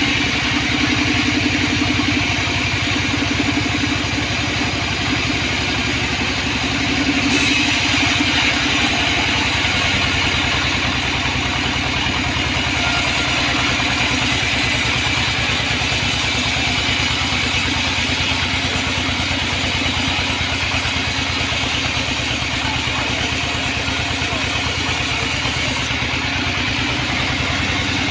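Sawmill band saw running steadily with its motor, sawing a large weru (rain tree) log into boards. A brighter hiss comes in about seven seconds in and drops away shortly before the end.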